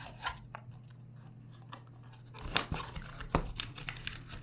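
Small boxes and packaging being handled: scattered sharp clicks and rustles, a cluster of louder clicks between about two and a half and three and a half seconds in, over a steady low hum.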